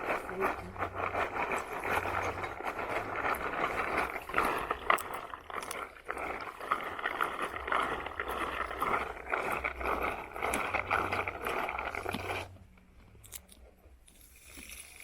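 Groundnuts in their shells rattling and scraping against each other and a container as they are handled, a dense clicking scrape that stops abruptly near the end.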